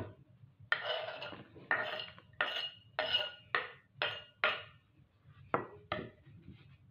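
Chopped vegetables scraped and knocked off a wooden cutting board into a metal pan: a scrape about a second in, then six quick knocks with a slight ring, and two more knocks near the end.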